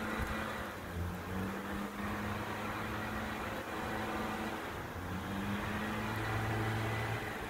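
Garbage truck engine running at a distance, a low steady drone whose pitch shifts slightly now and then.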